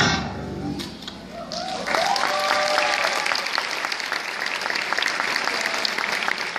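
Audience applause: the music dies away at the start, then dense clapping builds up about two seconds in and carries on steadily, with a few voices calling out just before it.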